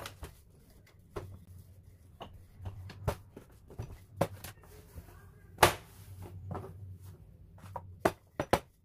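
Wooden rolling pin rolling out dough on a stone countertop: irregular knocks and taps as the pin is pushed, lifted and set down, the loudest about halfway through and a quick cluster near the end.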